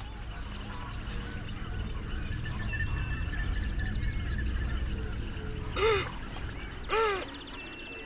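Two loud, short honking animal calls about a second apart near the end, each rising and falling in pitch, over faint high bird chirps and a low steady rumble of ambience.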